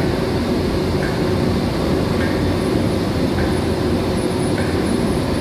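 Steady drone of electric-motor centrifugal pumps running, with a faint high tick repeating a little more than once a second.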